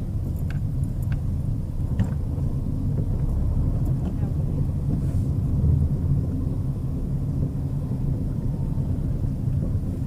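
Chevrolet Celta 1.0 being driven, heard inside the cabin: a steady low rumble of road and running noise, with a few light clicks in the first two seconds. The rumble carries a rear-axle noise that the mechanic is sure comes from a rear wheel bearing, or else the brake drum and shoes.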